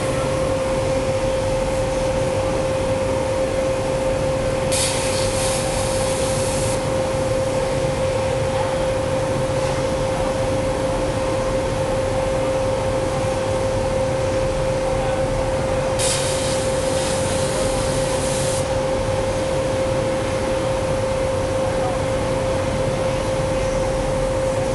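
ESAB CNC plasma cutting table running while cutting 1/4-inch mild steel: a steady hiss with a constant whine under it. Twice, about five and sixteen seconds in, a sharper high hiss cuts in for about two seconds.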